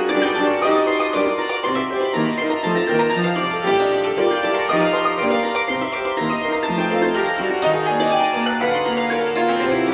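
Concert cimbalom played solo, its hammered strings sounding a continuous run of quick, ringing notes over a moving bass line.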